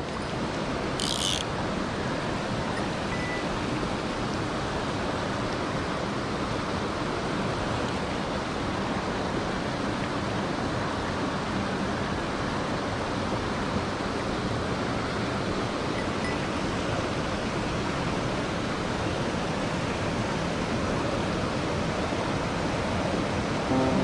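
Mountain stream running over rocks and boulders: a steady rush of flowing water, with a brief high hiss about a second in.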